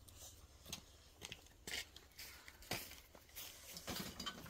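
Footsteps crunching and rustling in dry grass and brush, faint and irregular.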